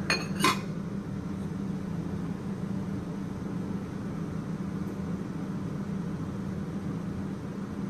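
A steady low mechanical hum with a faint hiss above it, with two short clicks in the first half second.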